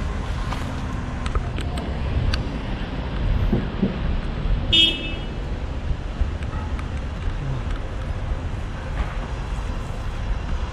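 Street traffic rumble with one short car-horn toot about five seconds in.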